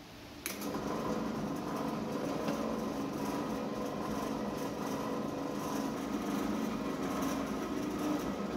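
Bench drill press running steadily as its bit bores through a white plastic knife-handle scale, starting abruptly about half a second in.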